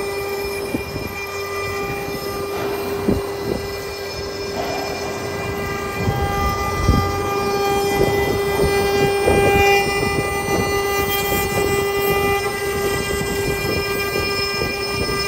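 Wood CNC router spindle running with a steady high whine while its bit carves a wooden cylinder turning on the rotary axis. Irregular crackling and knocking from the cutting runs over the whine, getting louder and busier about halfway through.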